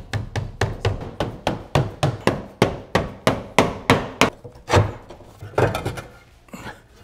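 Rapid taps of a lead dresser beating the coated-lead skirt of a pipe flashing down onto roof tiles, about three to four strikes a second, dressing the lead into a welted edge to turn water. The tapping slows to a few spaced strikes and stops about six seconds in.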